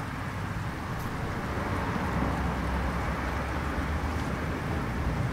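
Steady rain-ambience track: an even hiss of rain over a low, constant rumble.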